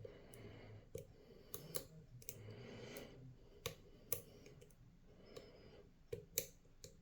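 Lock picks working the pins of a DORMA six-pin euro cylinder during picking: irregular sharp metallic clicks with faint scraping in between as pins are lifted under tension.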